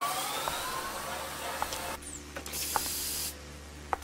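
Hissing noise with a few sharp clicks. The hiss falls away about two seconds in, comes back high and bright for under a second, then falls away again.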